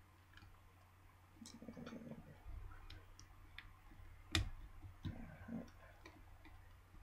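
Small clicks and scrapes of a pry tool working at the plastic clips of a Blackberry Bold 9790's housing, with one louder sharp click about four and a half seconds in.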